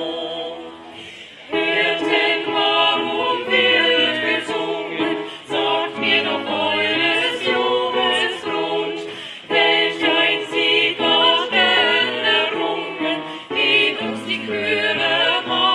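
A choir singing a cappella in several voice parts, with a brief break for breath just over a second in.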